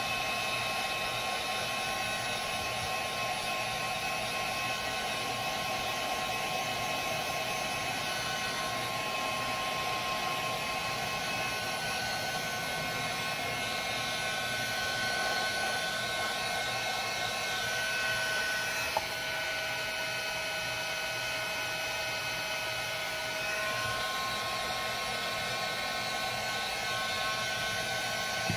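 Heat gun blowing steadily, a continuous rush of air with a motor whine that changes pitch a couple of times, used to melt and smooth the inside walls of a paraffin wax lantern.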